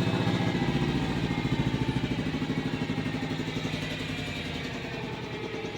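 An engine running steadily with a rapid, even firing pulse, growing slowly quieter toward the end.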